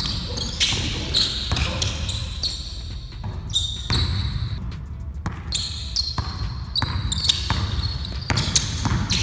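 A basketball being dribbled on a hardwood gym floor, with repeated short, high-pitched sneaker squeaks as the players cut and change direction.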